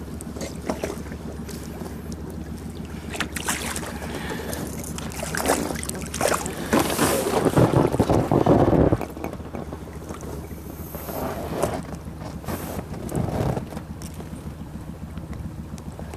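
A hooked lenok splashing and thrashing at the surface beside the boat. The splashing is loudest about seven to nine seconds in, with smaller splashes around five and thirteen seconds. A steady low hum runs underneath.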